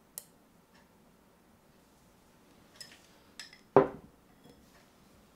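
Light clicks and clinks of dishes or utensils, then one louder knock a little before the end, like something set down on the table.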